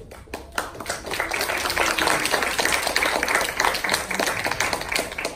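Audience applauding: a few scattered claps, swelling within about a second into steady clapping that thins out near the end.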